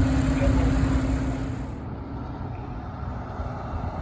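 Fire truck's engine rumbling as it drives past. A steady low hum is heard with it for the first couple of seconds; then the hum stops and the rumble grows quieter.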